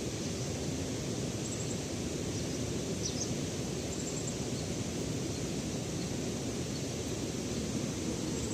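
Steady rushing outdoor noise, with a few faint, short, high bird chirps about one and a half, three and four seconds in.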